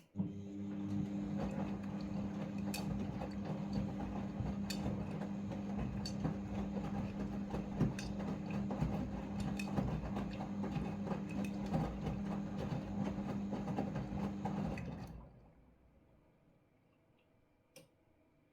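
Front-loading washing machine drum turning during the rinse cycle, its motor running with a steady hum and sharp clicks every second or two as the load tumbles. It starts abruptly and winds down about 15 seconds in, then stops before the drum reverses.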